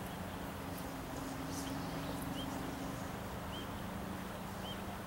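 Quiet outdoor ambience: a steady hiss under a faint low hum, a small bird chirping faintly about once a second, and a few brief high swishes in the first half.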